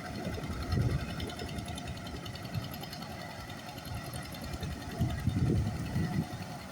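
A machine's engine running steadily with a fast, even chatter, with low voices about five seconds in.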